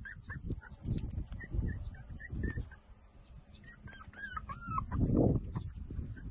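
Nursing puppies whimpering and squeaking in many short high-pitched calls, with a run of louder whines about four seconds in. Beneath them runs a low shuffling and rustling of the pile of puppies, with a louder muffled bump about five seconds in.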